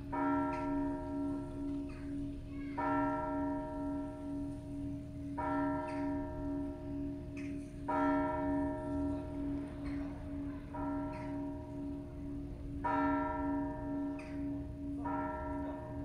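Orthodox church bell struck about every two and a half seconds, some strokes louder than others. Each stroke rings on and fades over a steady, wavering low hum from the bells.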